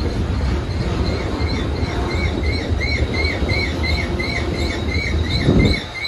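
Loaded coal hopper cars of a coal train rolling slowly past with a steady low rumble of wheels on rail. A short high squeak repeats about three times a second from about a second in, and a heavy low thump comes shortly before the end.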